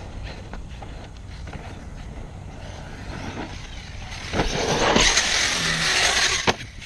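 ARRMA Kraton 1/8-scale electric RC truck running hard on dirt, its motor and tyres getting loud as it closes in over about two seconds, then a sharp thump near the end as it lands off a jump, a landing called a little harsh.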